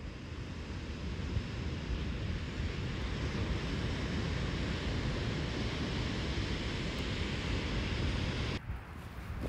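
Ocean surf washing onto a sandy beach, with wind buffeting the microphone. The sound drops away abruptly near the end.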